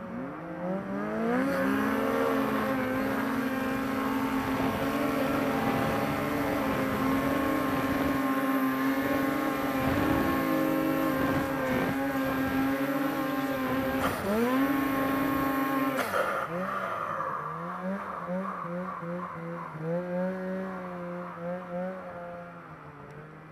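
Turbocharged mountain snowmobile engine revving up to high revs and held wide open on a hill climb, with a brief lift of the throttle and re-rev about two-thirds through. It then backs off to lower revs with short throttle blips near the end.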